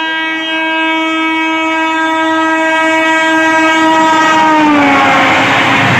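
A WAP-7 electric locomotive's horn sounding one long steady note, its pitch dropping about five seconds in as the locomotive passes at speed. The noise of the passing train then rises and takes over.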